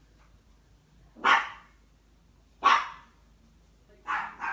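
A dog barking: single barks about a second and a half apart, then two in quick succession near the end.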